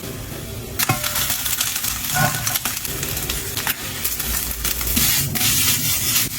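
Food sizzling in a hot pan, the hiss growing louder about a second in, with a few sharp clicks of a utensil against the pan.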